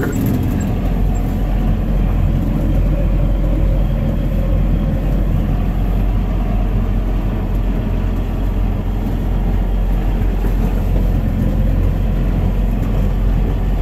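1988 Mercedes-Benz Unimog's diesel engine running steadily while the truck reverses in third gear, heard from inside the cab as a continuous deep drone.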